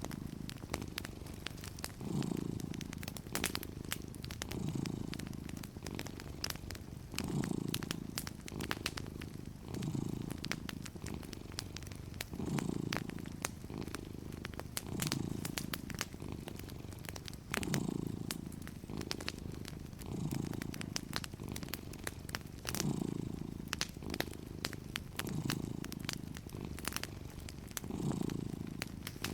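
Domestic cat purring steadily, the purr swelling with each breath about every two and a half seconds, over the scattered small pops and crackles of a wood fire.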